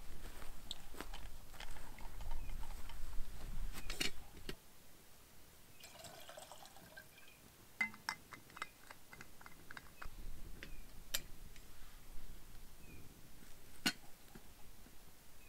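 Camp gear being handled beside a small stove: scattered light clicks and clinks, a quick run of clicks about eight seconds in, and a brief trickle of liquid about six seconds in. A low rumble, wind on the microphone, runs for the first four seconds or so, then drops away.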